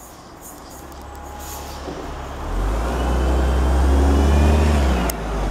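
Class 170 Turbostar diesel multiple unit approaching, its underfloor diesel engines a low drone that grows steadily louder and peaks about four seconds in. A single sharp click comes about five seconds in.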